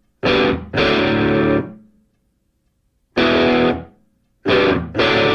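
Music: distorted electric guitar chords hit in short stabs and held chords, with a full stop of about a second partway through.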